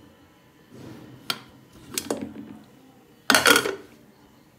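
Aluminium pressure cooker lid being twisted open and lifted off: a few sharp metal clicks and knocks, then one loud half-second metallic clatter about three seconds in as the lid comes away.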